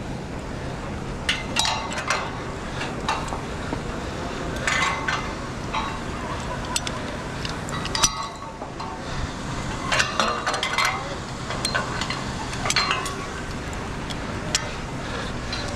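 Metal clinks and knocks of lanyard snap hooks and hardware against a steel truss tower as a climber goes up it, scattered irregularly, over a steady hiss.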